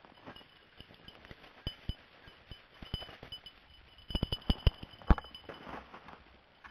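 Handling noise of a gun being carried through snow: scattered sharp clicks and knocks, with a quick cluster of louder ones about four to five seconds in, over soft crunching steps.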